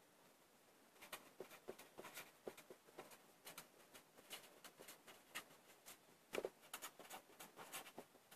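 Faint strokes of a felt-tip marker writing on paper, a run of short scratchy strokes beginning about a second in, with a slightly louder cluster a little past six seconds.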